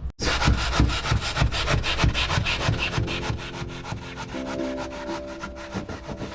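Rhythmic rasping of a tool working the fibreglass of the boat's hull, about four strokes a second. Background music with held notes comes in about halfway through.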